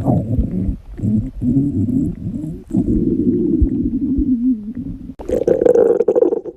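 Stomach growling: a run of long, wavering gurgles that break off briefly a few times, then a higher-pitched growl about five seconds in.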